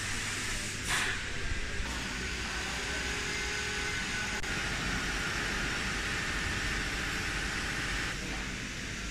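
Steady hissing machine-hall noise with a low rumble underneath, briefly louder about a second in.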